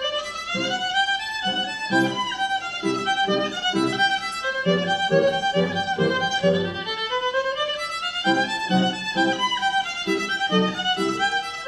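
Violin bowing a melody over repeated chords on an upright piano, the violin line climbing step by step in places.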